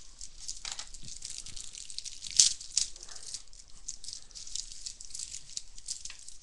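Plastic wrap and cardboard packaging of a Topps baseball-card value box crinkling and tearing as it is opened: a run of dense crackles, with one sharper rip about two and a half seconds in.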